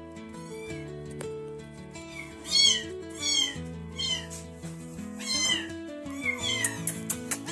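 Hungry young kittens mewing over and over, short high-pitched mews coming faster and louder from about two and a half seconds in, while they wait to be bottle-fed milk replacer. Background music with held notes plays underneath.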